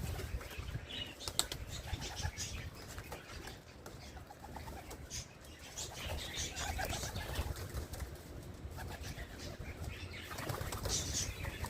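Domestic pigeons flapping their wings as they are let out of the loft: an irregular run of wing claps and flutters.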